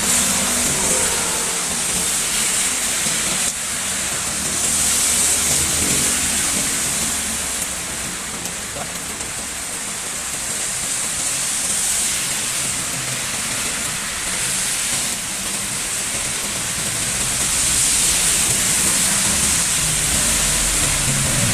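Heavy tropical rain pouring down steadily, a dense, even rush of noise that swells and eases slightly.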